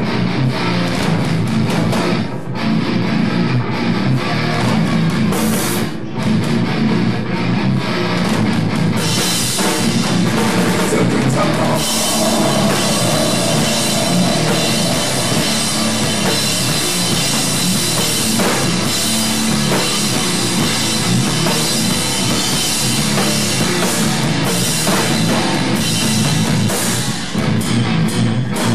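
Heavy metal band playing live: electric guitars over a full drum kit, loud and dense without a break, growing brighter and fuller about ten seconds in.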